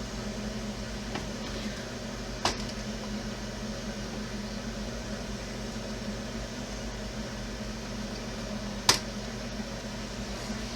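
Steady background hum, with a few sharp clicks and taps from small plastic RC parts being handled; the loudest click comes near the end.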